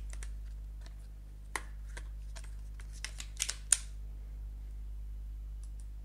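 Scattered sharp clicks of a computer mouse and keyboard in use, bunched together about three and a half seconds in, over a low steady hum.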